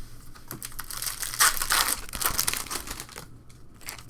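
A trading-card pack's foil wrapper being torn open and crinkled, with dense crackling strongest from about one to three seconds in.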